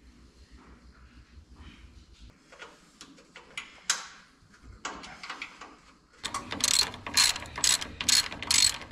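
Hand socket ratchet clicking in quick repeated strokes, about two a second, as a bolt is run in on the engine mounts, starting about six seconds in after a few faint metal clinks.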